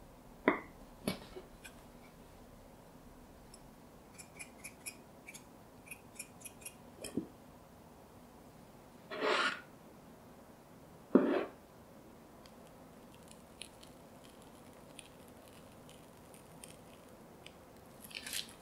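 Handling sounds of a pudding cup and a ceramic plate: a couple of knocks, runs of light clicks and taps, a louder scraping rustle partway through and one sharp knock, as a set chocolate pudding is loosened with a bamboo skewer and turned out onto the plate.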